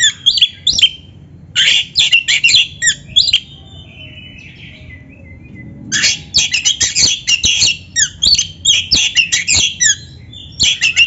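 Oriental magpie-robin (kacer) in full song: loud, rapid bursts of sharp chattering and whistled notes. The song breaks off for about two and a half seconds, leaving only a faint thin whistle, then resumes about six seconds in.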